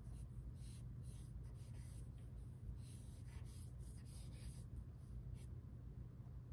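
Pencil strokes scratching across drawing paper, a run of short, irregular strokes, over a low steady hum.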